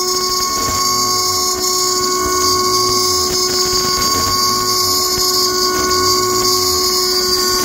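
CNC router spindle turning at 22,000 RPM, its carbide end mill cutting an adaptive-clearing pocket in aluminium. It makes a loud, steady high whine with cutting noise, over a lower hum that rises and falls in pitch about once a second as the tool loops through the pocket.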